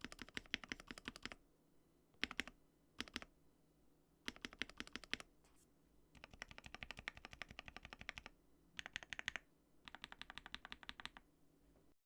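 Typing on a modded GMMK Pro mechanical keyboard with linear switches, fitted with a polycarbonate plate and PE foam: runs of rapid keystrokes broken by short pauses and a few single key presses, cutting off sharply near the end.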